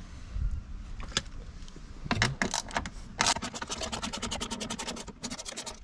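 Ratchet tool clicking rapidly and evenly, about fifteen clicks a second, as an 8 mm door-mirror mounting bolt is backed off, with some scraping and a knock of metal parts just before the clicking starts.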